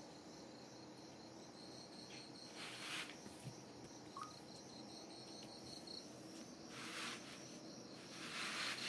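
A cricket chirping faintly in a steady pulsing trill, with a few short soft rustles, one about three seconds in and more near the end.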